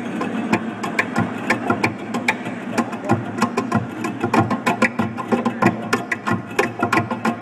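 Rapid, rhythmic percussive taps and clicks played on an acoustic guitar's body, the kind of percussion a looping guitarist builds up before a song, over a steady low hum.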